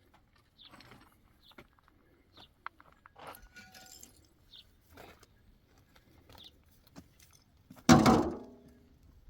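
Light scattered knocks and rattles of things being handled, then one loud knock about eight seconds in that rings briefly before dying away.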